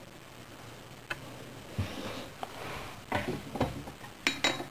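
Hands working a soldering iron and perfboard: after about a second of quiet, scattered light clicks, taps and rustles, with sharper knocks near the end.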